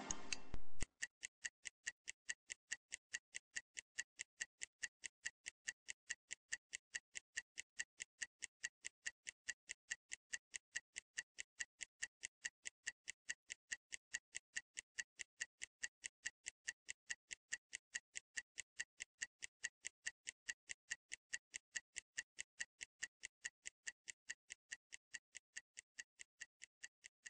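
Clock-style ticking of a workout interval timer sound effect, a steady run of sharp, evenly spaced ticks, a few a second, that grows fainter near the end. It marks the rest countdown between timed exercises.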